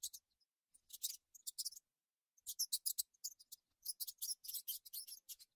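Mouse squeaking: quick runs of short, very high squeaks, coming in three bursts of several squeaks each.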